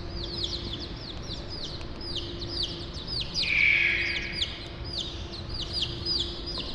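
A flock of small birds chirping rapidly, many short down-sliding chirps overlapping, with a louder rasping call about three and a half seconds in. A steady low hum runs underneath.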